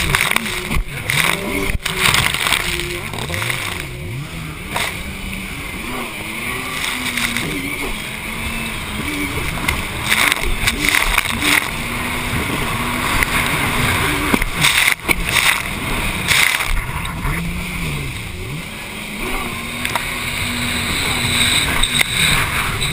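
Racing jet ski engine at speed, its pitch rising and falling again and again as the throttle is worked through the chop, with a constant rush of wind and spray over the helmet microphone and scattered sharp slaps of the hull on the water.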